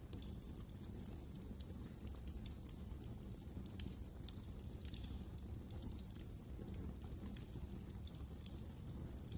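Wood fire in a fireplace crackling, with irregular small pops and snaps over a low steady rumble of the burning.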